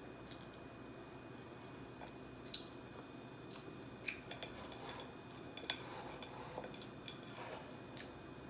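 Faint eating sounds: chewing and a whole fried chicken being pulled apart by hand, with a few scattered sharp clicks, the loudest about four seconds in.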